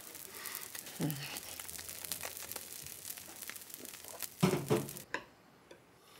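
Food sizzling in a frying pan: a steady crackling hiss full of fine pops, which cuts off suddenly about five seconds in. A brief voice sound is heard about a second in and again, louder, at about four and a half seconds.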